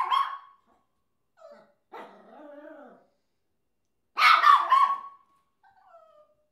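Papillon barking: a sharp bark at the very start and another about four seconds in, with quieter whines between and a short falling whine near the end.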